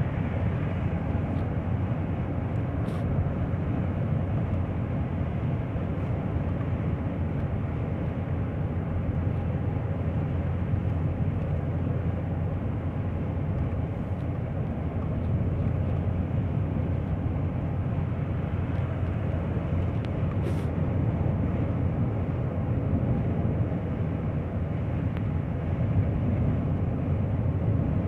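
A car driving on the road with a random multi-cylinder engine misfire: a steady low rumble of engine and road noise.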